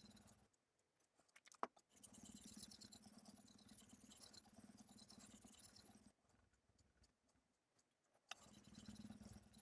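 Knife blade being sharpened on a Suehiro Debado S 3000-grit whetstone: a faint scraping of steel on stone, broken by two pauses of about two seconds. A sharp click falls in the first pause, and another comes as the scraping resumes.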